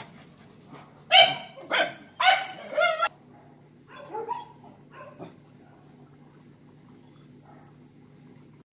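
A confined dog barking at a gate: four loud barks in quick succession about a second in, then two fainter ones around four and five seconds in, followed by quiet with a faint steady hum. The owner takes the barking for jealousy during mating season.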